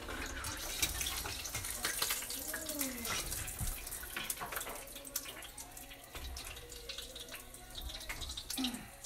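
Chunks of boiled pork scooped out of their broth with a wire skimmer in a metal pot: liquid splashing and dripping, with many small clicks.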